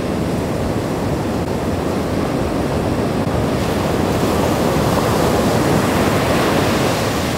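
Ocean surf breaking and washing up a sandy beach, a steady rushing that swells louder about halfway through.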